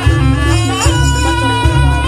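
Loud traditional jaranan music: a high melody of long held, slightly gliding notes over drumming and a deep, pulsing low beat.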